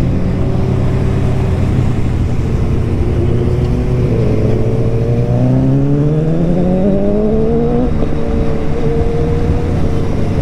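Sport motorcycle engine heard from the rider's seat: running steadily at first, then rising in pitch as the bike accelerates from about four seconds in, dropping sharply near eight seconds at a gear change, and climbing again.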